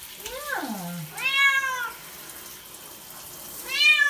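Domestic cat meowing three times while being rinsed under a handheld shower, protesting the water; the first call slides steeply down in pitch. The shower spray hisses steadily underneath.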